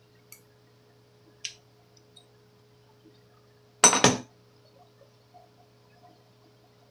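Small metal hand tools clinking against a hard surface: two light ticks, then a sharp double clink about four seconds in.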